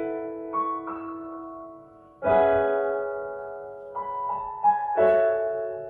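Slow piano music: sustained chords that ring and fade, a new chord struck about two seconds in and another near the end, with a few single higher notes in between.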